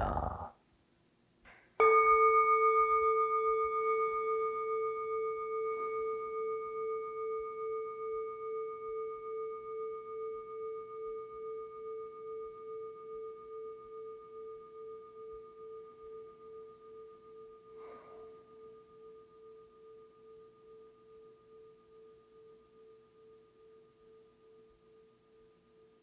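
A singing bowl struck once, its tone ringing on with a slow, even wavering and fading away over some twenty seconds.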